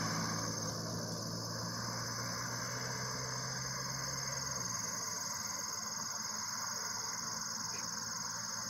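Steady high chirring of insects in the roadside grass, with the low hum of a car driving away that fades out about halfway through.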